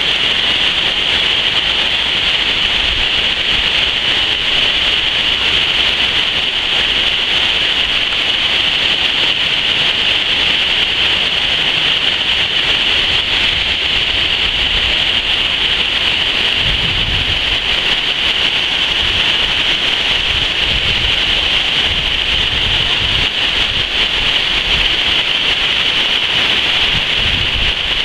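Water pouring over a low concrete dam's spillway and falling onto the rocks below: a loud, steady rush of white water.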